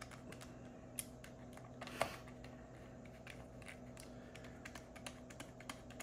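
Light clicking of a small screwdriver turning screws down into the housing of a Syrp Genie II Linear motor unit, a quick run of small ticks with two sharper clicks about one and two seconds in. A faint steady hum sits underneath.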